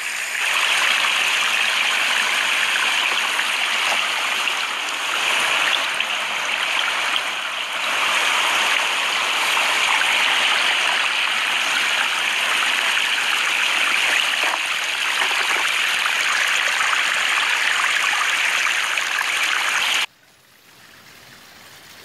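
Steady rushing water of a mountain stream that starts abruptly and cuts off suddenly about two seconds before the end.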